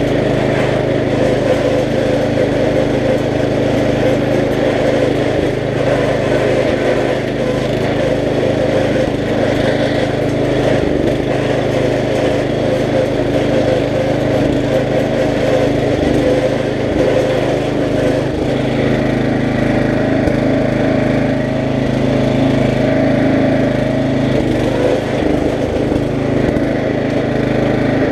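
Riding lawn mower engine running steadily under way, a dense even drone whose pitch shifts slightly about two-thirds of the way through.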